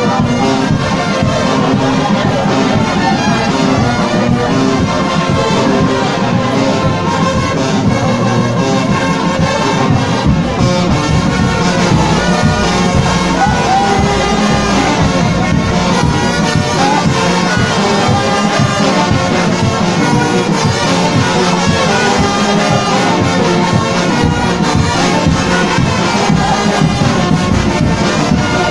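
Kimbanguist church fanfare, a brass band, playing parade music. The brass plays together, loud and continuous.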